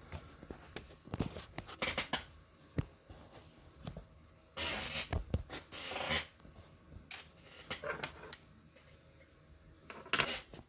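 Laptop being handled on a hard surface: scattered light clicks, taps and knocks, with a short scraping, rustling stretch a little before the middle and another cluster of knocks near the end.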